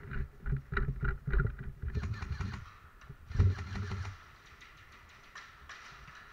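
Handling noise on a body-worn camera as the player moves: irregular low thumps of footsteps and gear knocking, with a louder thump about three and a half seconds in, then a quieter hiss.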